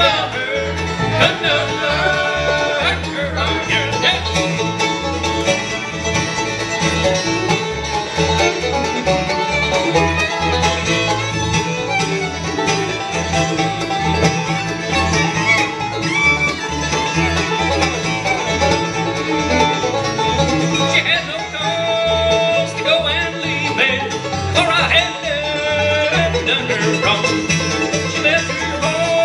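Live bluegrass band playing: banjo, fiddle, mandolin and acoustic guitar over an upright bass keeping a steady beat.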